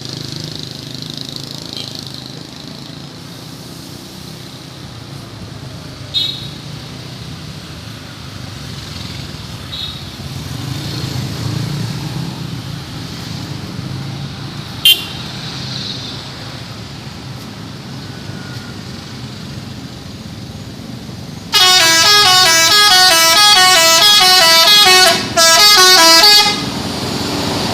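Telolet musical multi-tone bus horn playing a loud, fast, repeating pattern of stepping notes for about five seconds near the end, with a short break partway through. Before it, steady bus engine and street noise with a few brief sharp sounds.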